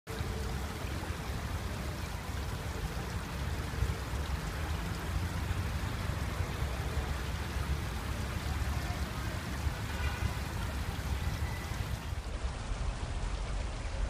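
Fountain water splashing and trickling steadily over stone slabs, over a low steady rumble, with faint distant tones about ten seconds in.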